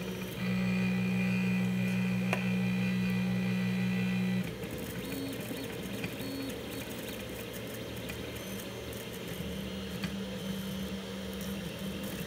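Tevo Tornado 3D printer's stepper motors running as the paused print resumes: a loud, steady whine for about four seconds, then quieter tones that keep changing as the printing restarts.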